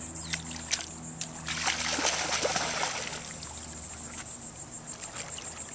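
A standard poodle splashing as it plunges from the shallows into the river and starts to swim, the splashing heaviest about a second and a half in and lasting about two seconds. Insects trill steadily in the background.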